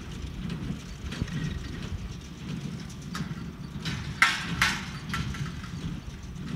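Kubota M7040 tractor working a New Holland BC5070 small square baler in the field: a steady low engine and machinery drone, with a few sharp metallic clanks from the baler, the loudest about four seconds in.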